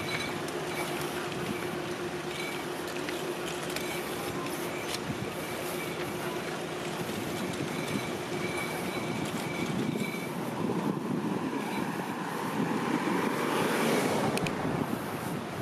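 Steady motor-vehicle noise with a low hum, swelling louder about three-quarters of the way through and easing near the end, as of traffic passing on the road.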